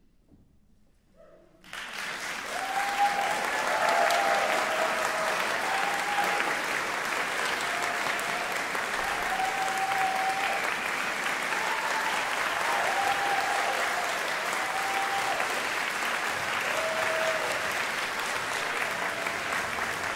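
A brief hush, then an audience breaks into applause about two seconds in, clapping steadily to the end.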